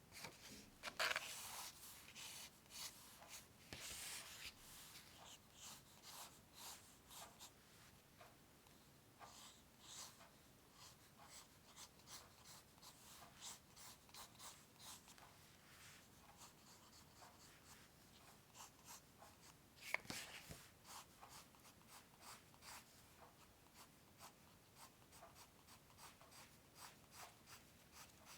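Quiet scratching strokes of a drawing tool on paper, short and quick in dense runs, louder near the start, with one sharper tap about two-thirds of the way through.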